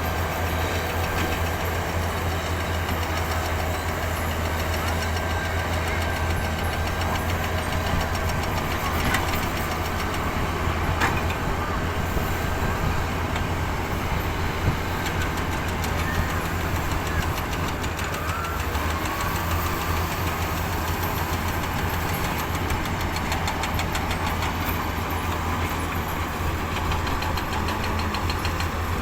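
Heavy diesel earthmoving machinery running steadily with a low engine drone, with a couple of brief clicks about nine and eleven seconds in.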